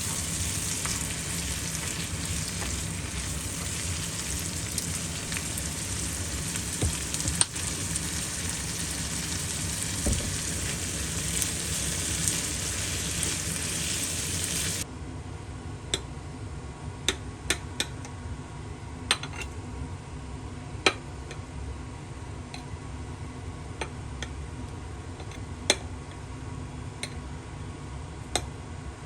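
Food sizzling as it fries in a pan, a steady hiss with a few light utensil clicks. About halfway through it cuts off abruptly to a quieter background with scattered sharp clicks and taps.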